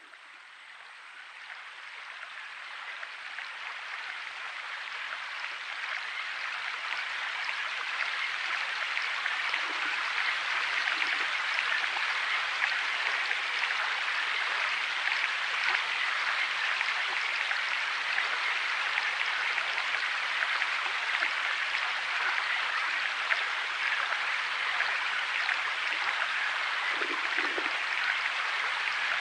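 Steady hiss of water, rain or running water, fading in over the first several seconds and then holding even.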